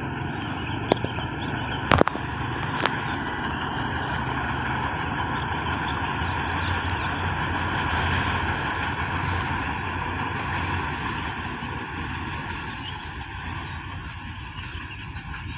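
Distant rumble of a commuter train crossing a river bridge and approaching, swelling to its loudest about eight seconds in and then easing off. A few sharp clicks in the first three seconds.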